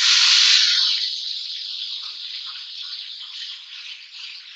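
Wet ground onion-and-tomato paste hitting hot oil in a frying pan: a loud sizzle that starts suddenly and slowly dies down.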